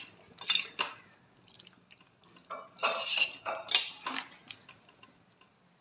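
Metal spoon stirring thick curry in a kadai, clinking and scraping against the pan. There are two short knocks about half a second in, then a run of scrapes and knocks from about two and a half to four seconds in.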